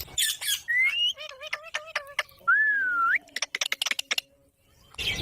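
Pet parrot squawking and whistling: short rising whistles, a longer whistle that rises sharply at its end, then a quick run of clicks. There is a brief pause, and the calls start again near the end.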